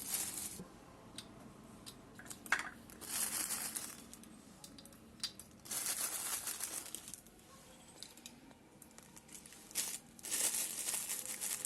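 Ingredient packets being handled: crinkling and rustling in bursts about every three seconds, with a few light clicks in between.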